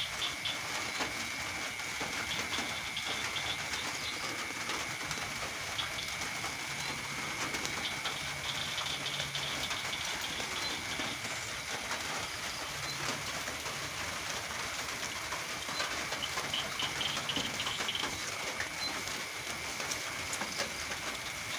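Rain falling steadily, an even patter of fine drops, with a thin steady high-pitched tone beneath it.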